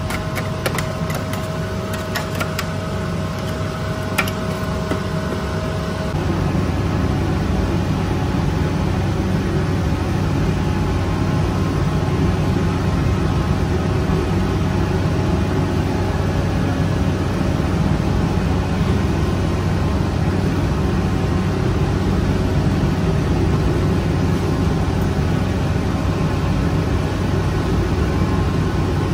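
A spiral dough mixer running, with a few sharp knocks of a scraper, then, about six seconds in, a louder steady rush and low hum from a flame-heated rotating-deck bread oven.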